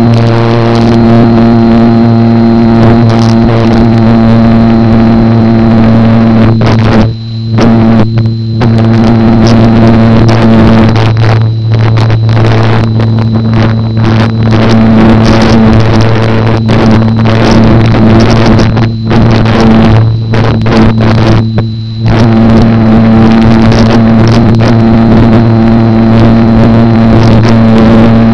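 Electric motor and propeller of a GWS Slow Stick RC plane running at a steady pitch, heard close up from a camera mounted on the plane, with air rushing past. The sound dips briefly several times between about seven and twenty-two seconds in.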